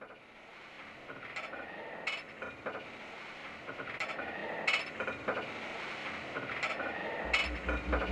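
Intro of a rock song: a fading-in, slowly building texture of clinks and sharp clicks every second or so, then a throbbing low bass pulse about seven seconds in, leading into the full band.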